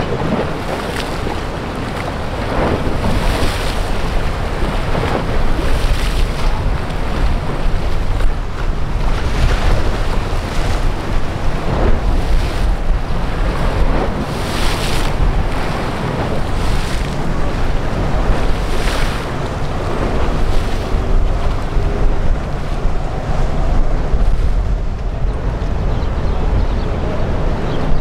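Wind buffeting the microphone over a steady low rumble, with irregular swishes of wind or breaking water every second or two.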